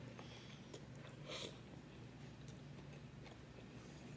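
Faint chewing and mouth sounds of a person eating a mouthful of food, with soft smacks about a second and a half in, over a steady low hum. A sharp click comes at the very end.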